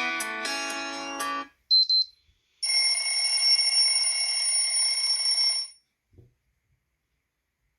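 Xiaomi Mi Mix 3 system ringtones playing one after another: a melodic ringtone cuts off about a second and a half in, a brief high beep follows, then a steady high-pitched tone with a hiss under it sounds for about three seconds and stops suddenly.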